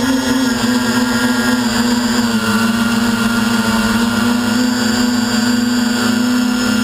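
DJI Flame Wheel F450 quadcopter's brushless motors and propellers buzzing steadily in flight, heard through its onboard camera. The hum holds one pitch with a slight wobble at the start and drops a little about two and a half seconds in as the motors adjust.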